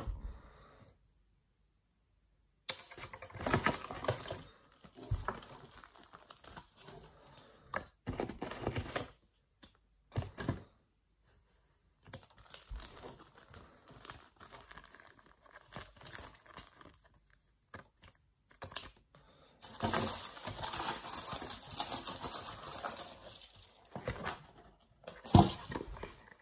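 Cardboard box and crinkle-cut paper filler handled and rustled while a parcel is unpacked by hand, in irregular crinkles, scrapes and taps. The longest, densest stretch of rustling comes in the last third.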